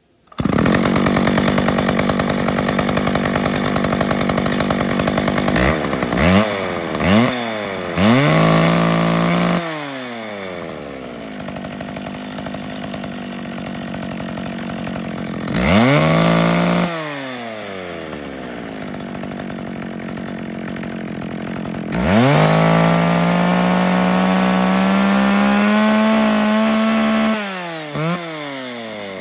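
McCulloch Pro Mac 650 two-stroke chainsaw with an ungoverned carburettor. It comes in loud just after the start and runs fast for about five seconds. Then it gives a few quick throttle blips and a longer rev, settles to idle with one more rev, and near the end is held at full throttle for about five seconds, its pitch climbing steadily, before dropping back.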